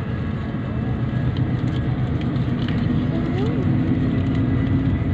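Steady engine and road noise heard from inside a moving vehicle, a continuous low hum.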